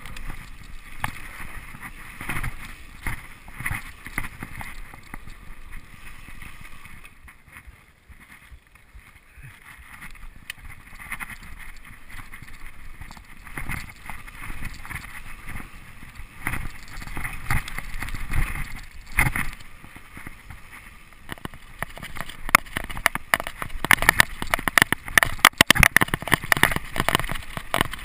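Mountain bike ridden fast downhill on a dirt trail: wind buffeting the microphone, tyres rumbling and the bike rattling. About three-quarters of the way in it turns into a denser, louder clatter of rapid clicks as the tyres run over loose stones.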